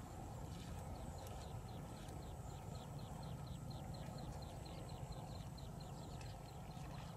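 Open-field ambience: a steady low wind rumble, with a rapid run of short high chirps, about five a second, starting about a second and a half in.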